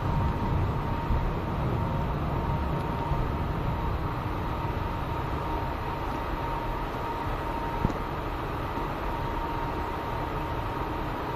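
SATU automated people-mover car heard from inside the cabin: a steady low running rumble with a constant high whine. It eases a little as the car slows to a stop at a station.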